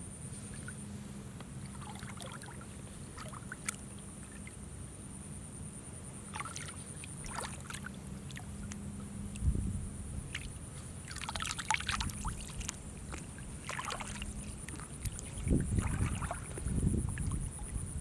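Water splashing and sloshing in irregular bursts as hands work through shallow water, with a few dull low thumps about halfway and near the end. A steady high whine runs underneath throughout.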